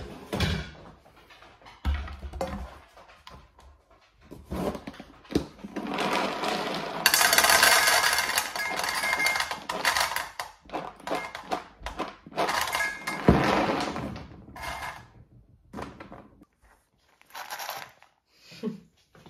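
Dry dog kibble poured from a plastic storage container into a stainless steel bowl: a several-second rattling rush of pellets on metal around the middle, with clinks and knocks of the bowl and container before and after.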